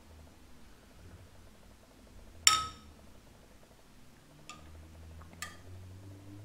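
A small glass tube clinking against a drinking glass: one sharp, ringing clink about two and a half seconds in, then two fainter clinks about a second apart.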